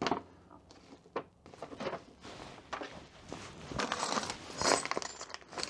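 Rustling and crinkling of packaging with light knocks as accessories are taken out of a motorcycle top box. The sounds come in short, uneven bursts, busiest in the second half.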